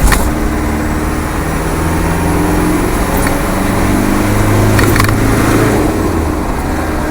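Land Rover's rebuilt 300Tdi 2.5-litre four-cylinder turbodiesel pulling under load, heard from inside the cab with no soundproofing, over road noise. There is a brief knock at the start and another about five seconds in.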